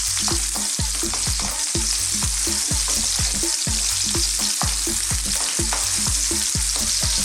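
Sliced red onions, garlic and ginger sizzling in hot oil in a wok, with a spatula stirring them in quick repeated strokes.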